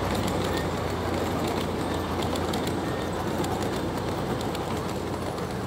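Steady rumble of trains on the move, slowly fading, with faint scattered clicks.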